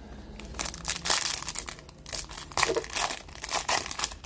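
Trading-card pack wrapper crinkling and rustling as cards are handled, in a run of short irregular rustles.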